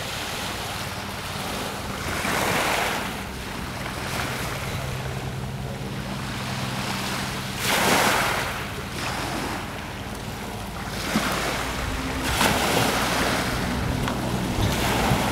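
Small waves breaking and washing over a shingle beach, surging louder about every five seconds, with wind buffeting the microphone and a steady low hum underneath.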